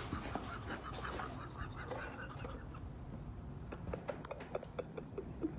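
Quiet, stifled laughter, then a run of light clicks and rustles from handling a cardboard box and the parts inside it.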